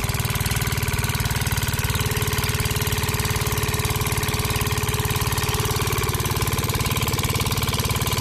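Small engine running steadily at idle with a fast, even chug. It comes from the miniature stationary engine that belt-drives a toy sugarcane crusher.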